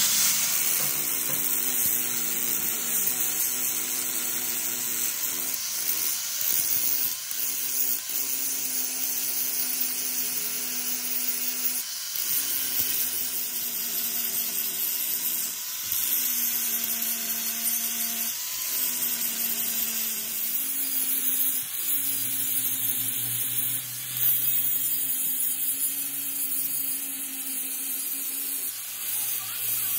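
Electric angle grinder with an abrasive disc grinding down the weld around the bearing bore of a metal truck differential housing. The motor hum dips and recovers several times as the disc is pressed into the metal.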